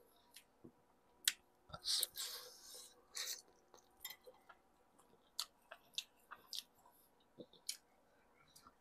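Close eating sounds: mouth smacks and chewing as meat is bitten off a stewed pork spare rib bone, many short clicks with a louder, longer smack about two seconds in.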